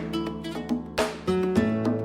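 Background music: acoustic guitar, plucked notes and strummed chords with a clear beat.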